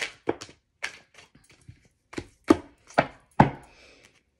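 A deck of oracle cards being shuffled and knocked against a table: about a dozen sharp, uneven taps and slaps, the loudest in the second half.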